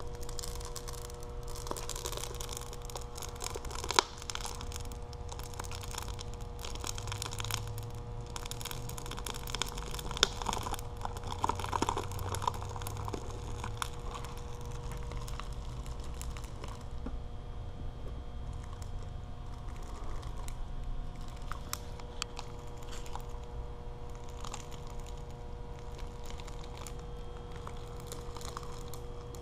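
A bag-removing machine's powered roller running over a plastic bag of granules, with crinkling and crackling of the plastic and scattered clicks over a steady electric hum. There is one sharp click about four seconds in, and the crinkling is densest in the middle.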